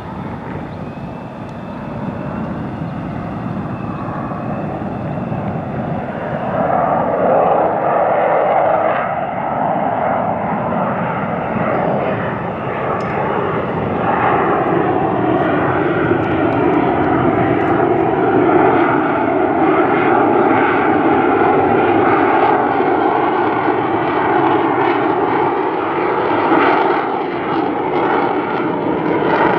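Jet noise from an F-35A Lightning II's single Pratt & Whitney F135 afterburning turbofan as the fighter flies past in a demonstration. The steady, loud noise swells about six seconds in and grows louder again about halfway through.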